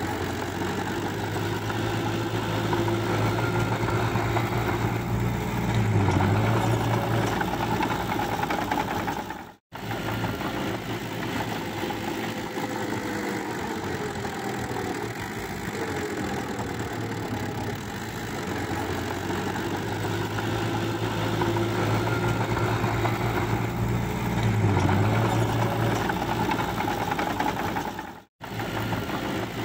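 Small crawler bulldozer's diesel engine running steadily as it pushes mud, its note dipping briefly twice. The sound cuts out for an instant about ten seconds in and again near the end.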